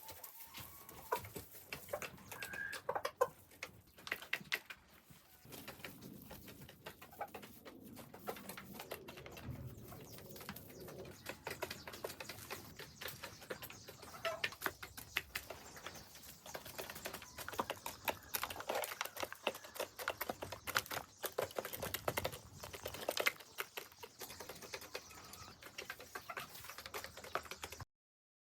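Chickens pecking feed at a feeder: a steady run of rapid, irregular sharp clicks, with a few soft clucks.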